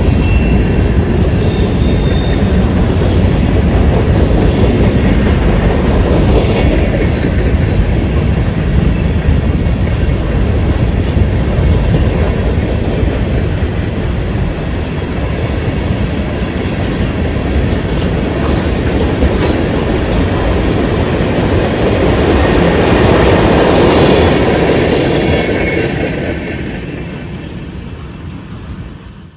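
Freight train rolling past at close range, its wheels running over the rails with a steady rumble and brief high squeals now and then. The sound fades away over the last few seconds.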